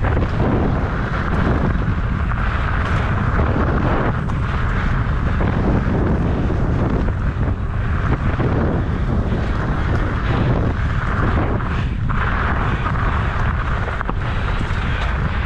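Wind buffeting the microphone over the continuous rumble and irregular jolting rattle of a mountain bike with 29 x 3 inch tyres riding a rough dirt trail.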